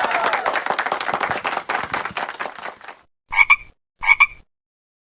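Animal croaking, frog-like: a rapid pulsing croak fades out over about three seconds, then two short croaks come about half a second apart.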